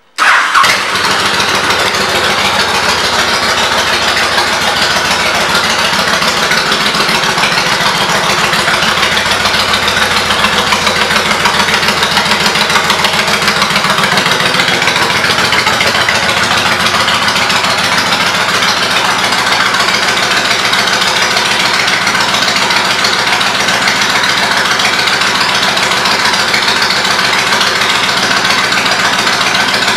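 2003 Honda VTX 1300S's V-twin engine, fitted with aftermarket Cobra exhaust pipes, starting up suddenly and then idling steadily.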